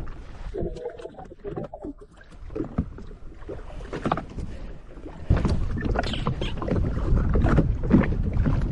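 Wind buffeting the microphone and water lapping at the hull of a drifting jet ski, with scattered clicks and knocks as a small fish is reeled up. About five seconds in, the low wind rumble gets louder.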